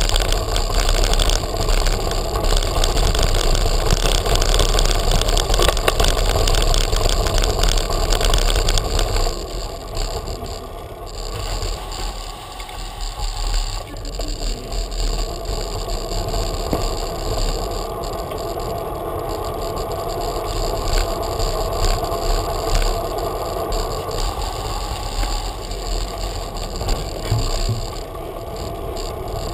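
Bicycle rolling over stone-paved streets, heard through a frame-mounted action camera: a steady rush of wind on the microphone with the rattle of tyres and frame over the paving. It is louder for the first nine seconds or so, then quieter.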